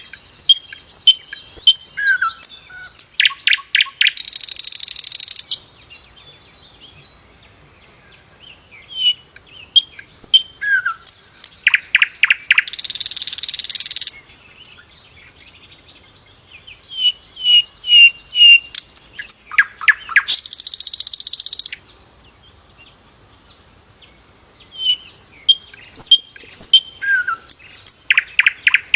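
Sikatan londo flycatcher singing loud, repeated song phrases about every eight seconds. Each phrase is a quick run of short whistled notes and very high chips with a few slurred lower notes, and ends in a harsh buzzing rattle about a second and a half long.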